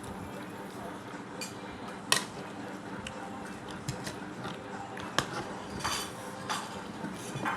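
Eating utensils clinking and scraping against a plate while noodles are eaten: one sharp clink about two seconds in, then several softer clinks later on.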